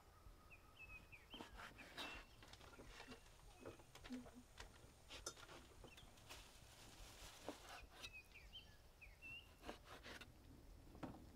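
Near silence: faint bird chirps in two short bursts, with a few soft knocks of a knife on a wooden cutting board as steak is cut.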